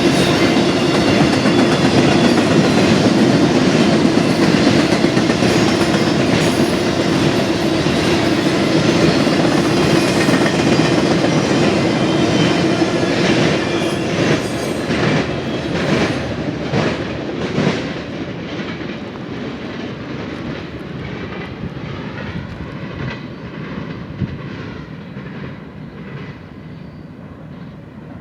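Freight train of intermodal and empty spine cars rolling past, a steady rumble of wheels on rail. About halfway through, wheel clicks over the rail joints stand out, then the sound fades away as the train moves off.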